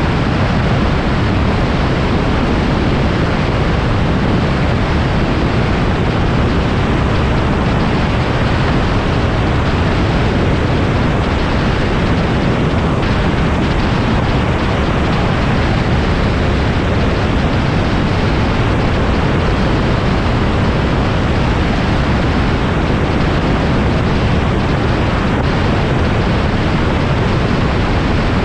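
Steady, loud rush of wind and engine noise from a microlight aircraft in flight, with no distinct engine tone standing out and no change in level.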